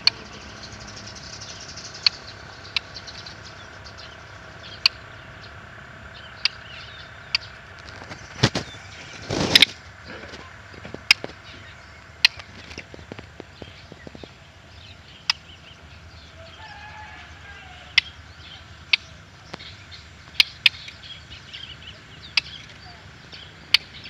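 White-rumped shama hopping about a wire cage: sharp, scattered taps as it lands on the perch and bars, with wing flutters. A louder thump and rumble comes about nine seconds in, over a steady high hum.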